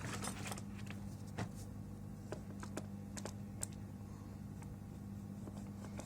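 Scattered small clicks and ticks of a screwdriver working the two screws out of an Android car head unit's casing, over a steady low hum.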